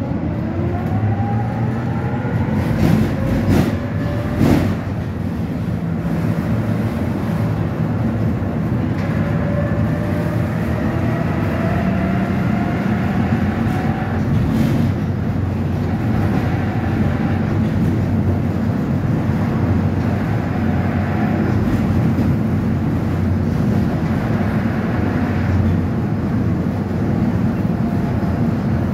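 Inside an electric tram under way: the steady rumble of steel wheels on rails, with the traction motor's whine rising in pitch twice. A few sharp clacks come from the wheels on the track, three close together about 3 to 4.5 seconds in and one more about halfway through.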